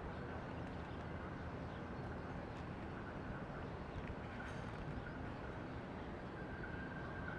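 Steady outdoor background noise, a low rumble and hiss with no clear source, with a few faint clicks. A thin, steady high tone comes in faintly near the end.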